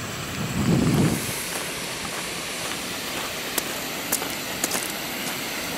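Wind buffeting the microphone in a low rumbling gust about a second in, then a steady hiss of wind and rain, with a few sharp ticks in the middle.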